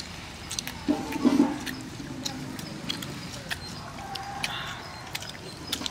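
Eating by hand from banana leaves: scattered sharp clicks of lip smacks and fingers working food on the leaves, with two short vocal sounds, a lower one about a second in and a higher one about four and a half seconds in.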